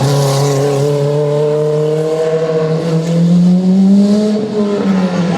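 Rally car engine running hard and steady, its pitch slowly climbing about three seconds in, then falling off near the end.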